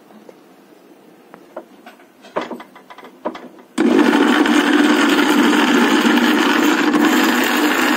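Electric mixer grinder switched on about four seconds in and running steadily at full speed, its blades grinding garlic, ginger, cumin and black peppercorns in a steel jar. A few knocks and clicks come just before it starts.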